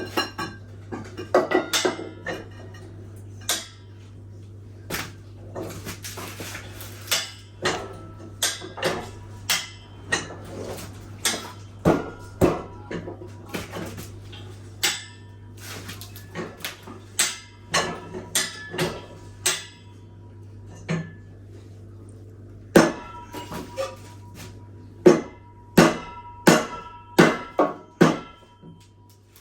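Irregular metal-on-metal clanks and knocks from heavy steel parts being handled and struck, several leaving a short ringing tone, over a steady low hum.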